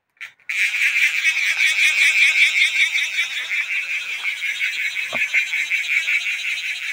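A steady, high-pitched trilling chorus of calling animals, pulsing rapidly, starting abruptly just after a brief cut to silence. A single short low knock about five seconds in.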